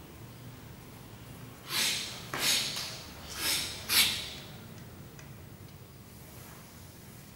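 Four short, forceful exhalations from a karate practitioner, timed with strikes in a karate kata, packed into about two and a half seconds, with a faint steady room hum around them.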